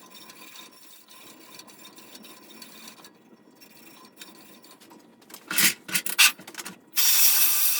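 Scotch-Brite pad scouring the bare metal wheel of a bandsaw to clean off buildup under the old rubber tires. Light rubbing at first, then several loud scrubbing strokes, the last lasting about a second near the end.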